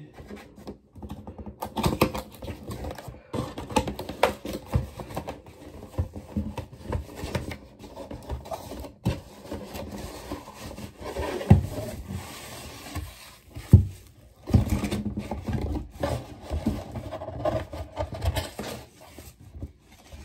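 Cardboard box being opened and handled by hand: flaps scraping and folding, packaging rustling, with irregular knocks and two sharper thumps a little past halfway. Near the end, a foam-wrapped plastic pitcher is pulled out of the box.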